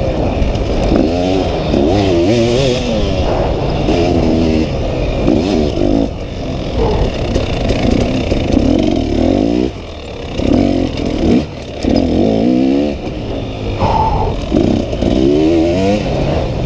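Dirt bike engine revving hard, rising in pitch again and again as it accelerates and pulls through the gears. The throttle is shut off briefly about ten seconds in and again a moment later.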